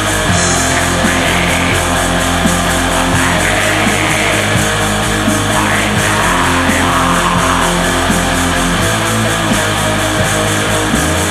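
Heavy metal music: a dense, steady wall of distorted electric guitar over a fast, even beat.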